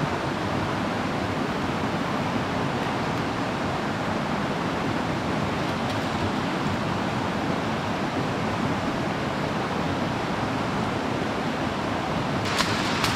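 Steady rush of a shallow, rocky river running over rapids. Near the end, a few sharp cracks as dry bamboo stems are handled.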